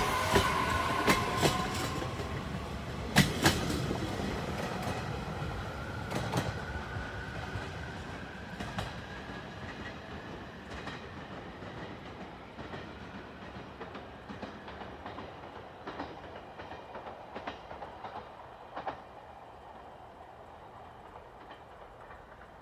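JR Kyushu 815 series electric train pulling out and accelerating away: its motors whine in a rising pitch over the first ten seconds while the wheels clack over the rail joints. The sound fades steadily as the train draws off into the distance.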